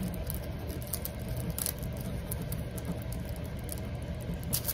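Steady low hum, with a few faint rustles and ticks as a diamond painting canvas is handled on a table.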